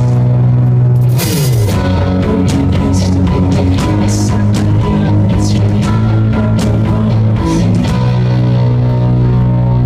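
Live rock band playing loud, guitars to the fore, with a falling slide in the low notes about a second and a half in.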